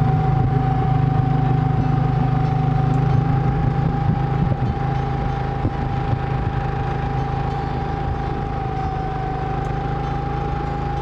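7.5 hp, 196 cc four-stroke outboard motor running steadily at speed, driving an inflatable boat, with a steady high whine over the engine note.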